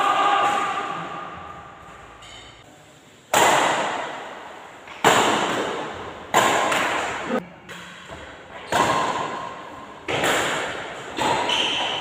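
Badminton rackets striking the shuttlecock in a doubles rally: about six sharp hits, irregularly spaced about a second and a half apart, each followed by a long echo from the hall.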